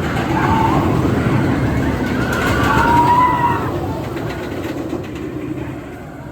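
Roller coaster train rumbling past, with riders screaming as it passes. It swells to a peak about three seconds in, then fades.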